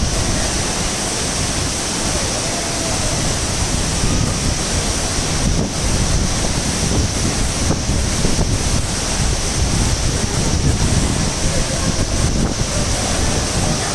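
Steady rushing roar of the Devkund waterfall, with wind buffeting the microphone.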